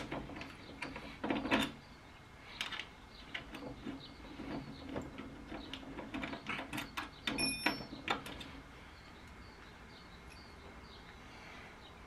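Small metal clicks and light knocks of a nut and bolt being turned by hand on a steel gate lock fitted to a door frame, with one brief high-pitched ring a little past halfway. The handling stops about two-thirds of the way in, leaving faint room tone.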